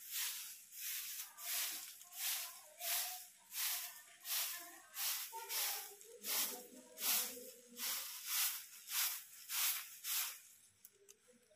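Soft grass broom sweeping concrete paving strewn with dry leaves and grit: a steady run of rhythmic hissing strokes, nearly two a second, that stops about ten and a half seconds in.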